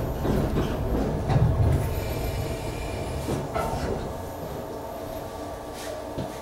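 119-series electric railcar braking to a stop at a station platform, heard from inside the carriage: the running rumble and wheel noise fade over the first few seconds, leaving a steady hum with a few faint clicks as it stands.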